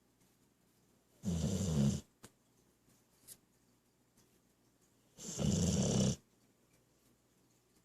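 Dog snoring while awake: two snoring breaths, each under a second long, about four seconds apart.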